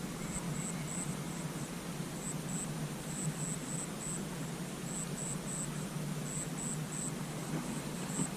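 Outdoor ambience of insects chirping in short, high-pitched pulses a few times a second, in groups, over a steady low rumble.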